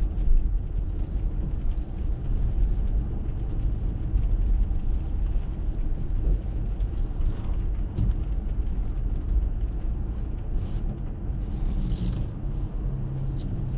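Car cabin noise while driving on wet pavement: a steady low rumble of engine and tyres, with one sharp tick partway through.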